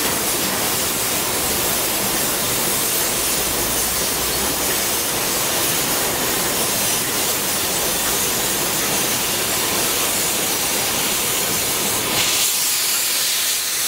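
Gas cutting torch hissing steadily as it cuts through a thick steel pipe. About twelve seconds in, the lower part of the rush drops away, leaving a thinner, higher hiss.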